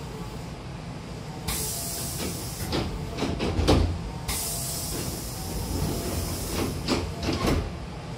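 Hankyu commuter train's double sliding doors worked by compressed air: two bursts of air hiss, a few knocks and one heavy thud, then the doors slide shut with a couple of knocks near the end.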